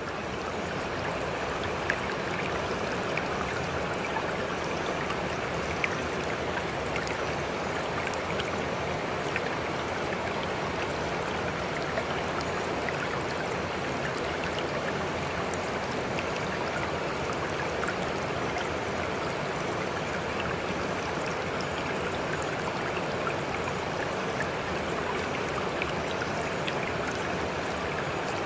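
Steady rushing water ambience like a flowing stream, with faint scattered splashy ticks, used as the masking background track of a subliminal.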